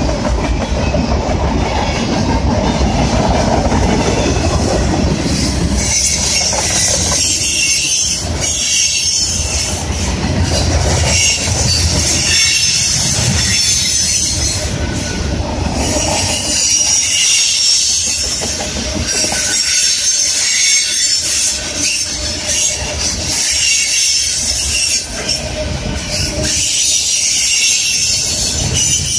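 Freight train of covered hopper cars rolling past close by, steel wheels running over the rails. A high, wavering wheel squeal comes in about six seconds in and keeps on over the rumble.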